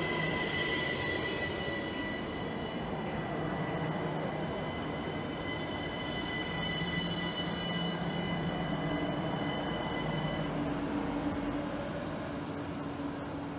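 ÖBB Cityjet electric multiple unit (class 4746, a Siemens Desiro ML) moving slowly along the platform close by, with a rumble and a steady high whine that stops about ten seconds in.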